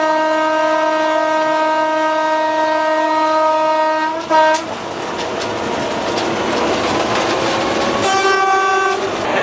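Locomotive horn heard from inside the cab: one long steady blast of about four seconds that cuts off, a brief short toot right after, then a second, shorter blast at a higher pitch near the end. The running noise and rail clatter of the moving train lie underneath.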